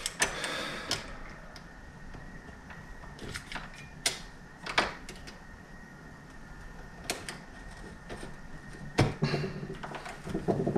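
A wood chisel trimming the latch-plate mortise in a door edge: scattered sharp taps and scrapes of steel on wood at irregular intervals.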